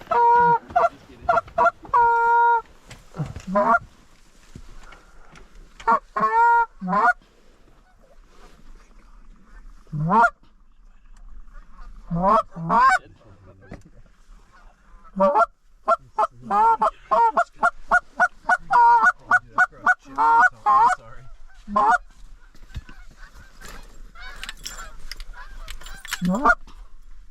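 Geese honking: a scatter of separate honks, then a fast run of about three honks a second in the middle, and a few more honks near the end.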